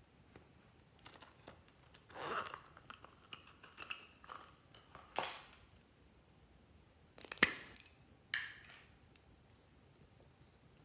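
Small plastic items handled with scattered clicks and crinkles. About seven seconds in comes a sharp click, followed a second later by a softer one, as the caps are pulled off two plastic lip balm sticks.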